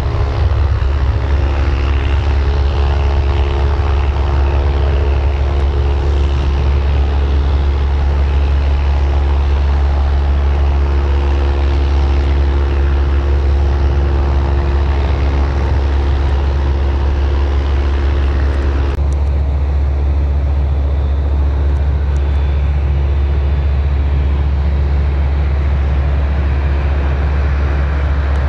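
easyJet Airbus A320-family airliner's jet engines at take-off power as it climbs away: a loud steady noise carrying several held engine tones, over a heavy low rumble. About two-thirds of the way through the sound changes abruptly: the engine tones and the higher noise drop away, leaving a duller jet noise and the rumble.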